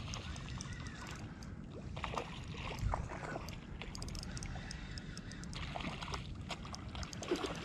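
Water sloshing and splashing around a kayak while a hooked fish thrashes at the surface, with scattered small ticks and a dull knock about three seconds in.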